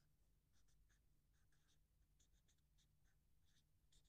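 Faint writing or drawing strokes: short, irregular scratches, several a second, over a low steady background hum.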